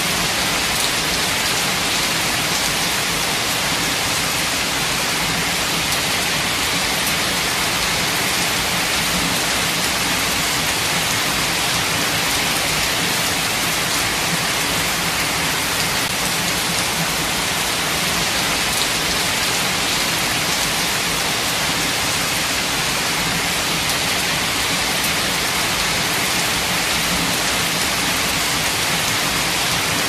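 Steady rain falling, an even hiss with a few distinct drops standing out now and then.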